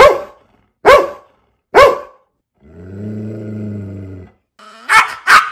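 Dog barking three times about a second apart, then a low steady growl for about a second and a half, followed by two quick barks close together near the end.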